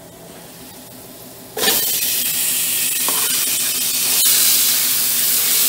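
Food frying in a hot pan: a quiet sizzle that suddenly turns into loud, steady sizzling about a second and a half in, as fresh food or liquid hits the hot pan. There is one sharp click near the middle.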